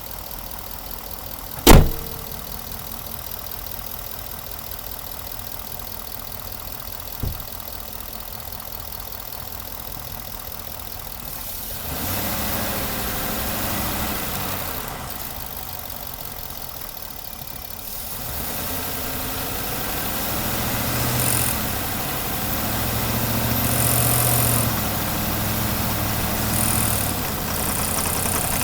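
The 5.0-litre V8 of a 2018 Ford F-150 running, at first low and steady, then louder from about halfway with its note rising and falling as it pulls. A sharp click sounds about two seconds in and a fainter one a few seconds later.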